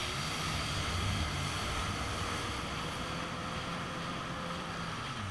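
Jet ski engine running at speed, a steady low drone, with water spray hissing off the hull and wind on the microphone.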